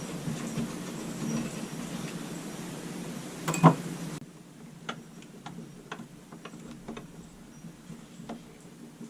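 Wooden cabin window sash being worked in its frame, scraping with one loud knock about three and a half seconds in; it binds because the sash is too tight along the bottom. After an abrupt change, scattered light clicks and taps.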